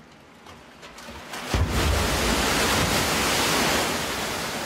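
A man-made tsunami surging down a 180-metre concrete wave flume. After a quiet start, a sudden rush of water and spray comes in about a second and a half in, holds loud and steady, then slowly eases.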